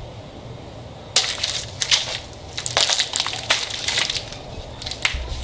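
Irregular crackling and crunching of an air filter's cardboard frame and pleated media being handled and pressed into place.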